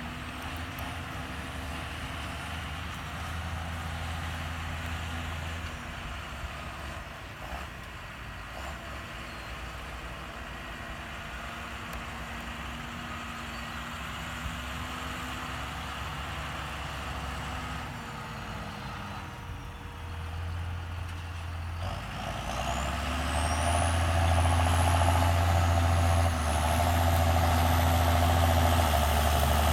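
John Deere 6930 tractor's six-cylinder diesel engine running steadily under load while pulling a five-furrow plough. About two-thirds of the way through, the engine note sags and dips, then picks back up and grows much louder, with a high whine rising in pitch.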